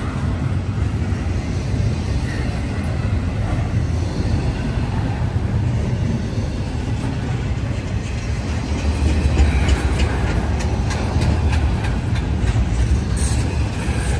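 Norfolk Southern intermodal freight train rolling past: a steady low rumble of the cars on the rails, with a run of sharp clicks in the second half.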